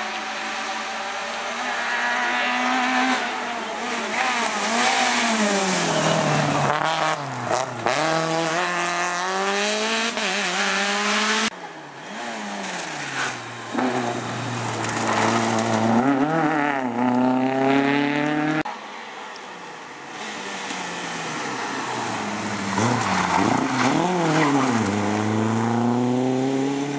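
Rally car engines revving hard. In each pass the pitch drops as the car brakes and downshifts for the bend, then climbs again through the gears as it accelerates away. There are three passes, each ending abruptly.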